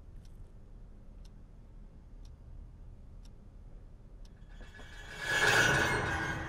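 Wall clock ticking about once a second. About five seconds in, a sudden loud swell of ringing noise breaks in and dies away, leaving a low steady hum.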